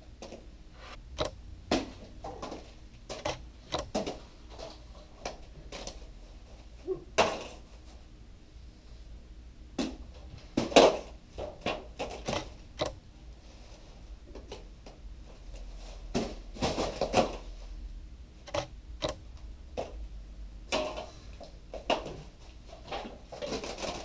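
A run of wet splats and thumps as cream pies are smashed into faces and onto suits, some hits landing in quick succession; the loudest comes about eleven seconds in.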